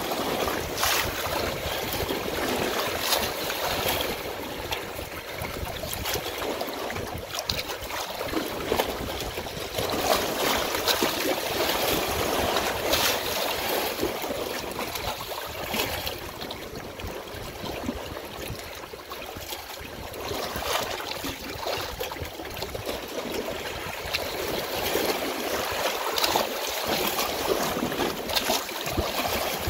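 Running water, like a stream, flowing and splashing steadily, with many small splashes and a loudness that swells and eases every few seconds.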